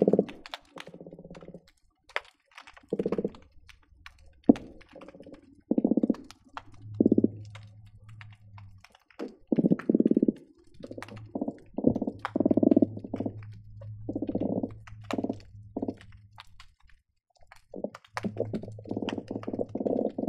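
Croakers calling underwater, heard through hydrophones: irregular bursts of rapid low knocking pulses, each from a fraction of a second to about a second long, with a lower drone coming and going beneath them. Sharp clicks are scattered throughout.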